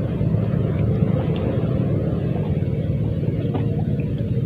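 Steady low rumble of wind on the microphone, with a few faint small clicks.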